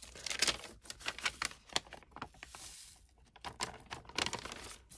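Paper being handled: irregular rustling and light taps as a folded sheet of lined paper is lifted and opened.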